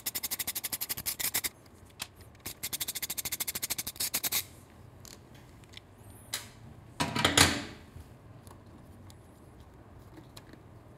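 Hand ratchet clicking in two quick runs, about ten clicks a second, as T30 Torx screws are backed out. About seven seconds in there is a brief scraping rub, the loudest sound.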